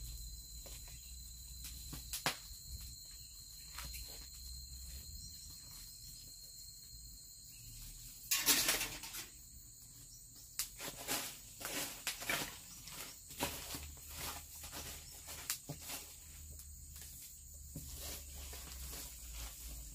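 Steady high-pitched insect drone, with scattered knocks, clatters and rustles from planks of leftover building timber being handled and stacked. A louder rustling scrape comes about eight seconds in, and the lower of the two insect tones stops there.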